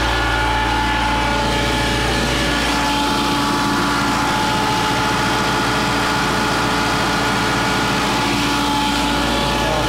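XA 175 towable 175-CFM diesel air compressor running at a steady speed. Its engine is running hot, with coolant near 240°F, which the owner puts down to poor coolant circulation and a possibly worn water pump.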